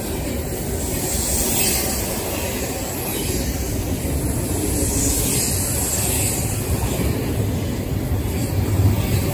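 Double-stack intermodal container cars of a freight train rolling past close by: steady wheel-on-rail noise that carries on without a break.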